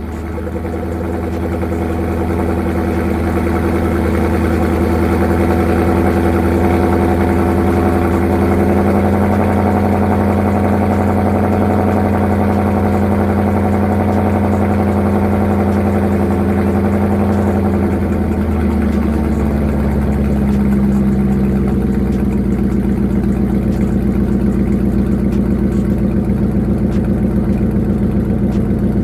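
Ford 4.6-litre V8 idling steadily through a newly fitted 3-inch X-pipe exhaust. The idle drops a little about two-thirds of the way through and holds at the lower speed.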